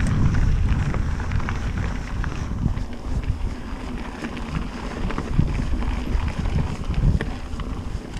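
Wind buffeting a rider-mounted action camera on a mountain bike descending a gravel trail, with tyres crunching over loose stones and the bike rattling in scattered short clicks.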